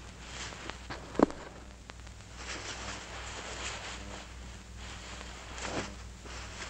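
Cloth rustling as a man takes off his hat and coat, with one sharp knock about a second in, over a low steady hum.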